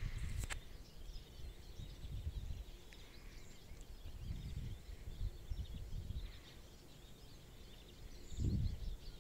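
Wind buffeting the microphone in low, uneven gusts, with small birds chirping faintly and a single sharp click about half a second in.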